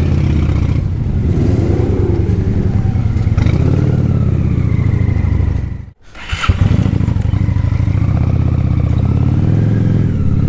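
Motorcycle engine running at low street speed, its pitch rising and falling with the throttle. The sound cuts out abruptly about halfway through, then comes back.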